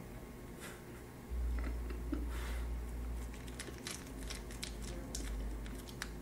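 Food wrapper crinkling in short crackles as a snack is handled, unwrapped and bitten, over a low steady hum that grows louder about a second in.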